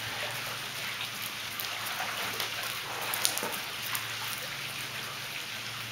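Steady hiss of pool water splashing and trickling, with scattered small ticks and one sharp click a little over three seconds in.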